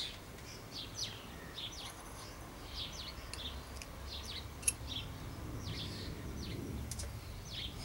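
Small birds chirping in the background, many short falling chirps, over a faint low hum. About halfway through, a single sharp click as pliers work on the steel planet cage of the hub.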